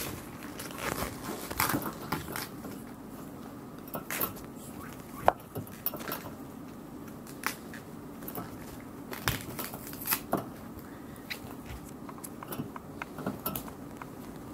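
Guinea pigs eating: irregular crisp crunches, crackles and rustles of chewing and tearing food, over a faint steady low hum.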